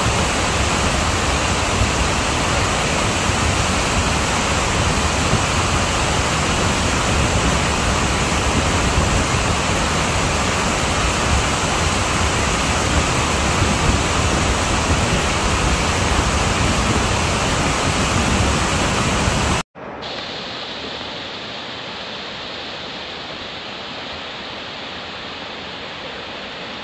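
Steady, loud rushing noise of a secondary steam eruption, steam blasting out where rainwater has reached buried hot pyroclastic-flow deposits. About three-quarters of the way through it cuts off abruptly to a quieter, even rushing.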